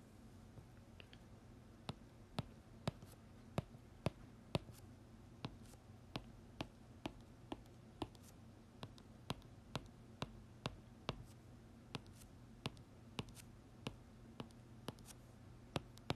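Marker pen on paper drawing short tick marks along graph axes: a run of quick sharp ticks, roughly two a second, as each mark is struck down. A faint steady low hum lies under them.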